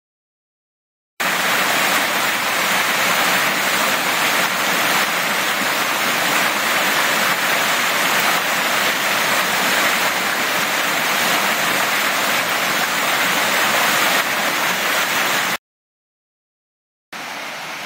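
Whitewater of a mountain stream rushing over boulders, a loud, steady rush that starts about a second in and cuts off suddenly. After a short gap of silence, a quieter rush of stream water begins near the end.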